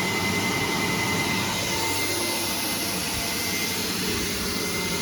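1985 Kärcher coin-operated twin-motor vacuum cleaner running steadily, a continuous rushing of air with a faint steady whine.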